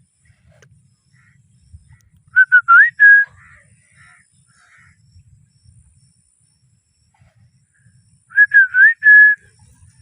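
A parrot whistling: two short phrases of about four clear notes each, with little up-and-down slides in pitch, one about two seconds in and one near the end.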